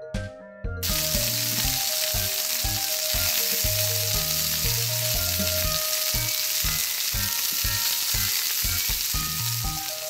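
Steady frying sizzle that switches on suddenly about a second in, a sound effect for the toy steak being cooked on the play kitchen's pan, over background music with a steady beat.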